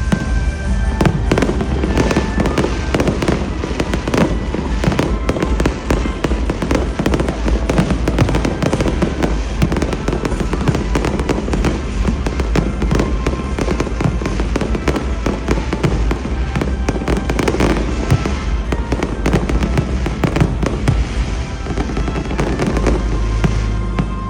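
New Year fireworks going off in a dense, continuous barrage of bangs and crackles, with music playing underneath.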